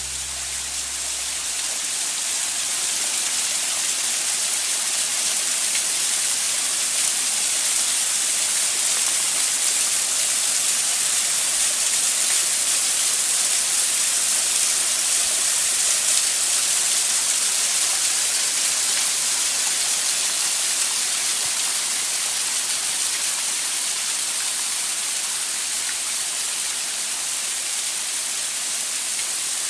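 Steady rush of a waterfall's falling water, rising in over the first couple of seconds as a few music notes die away.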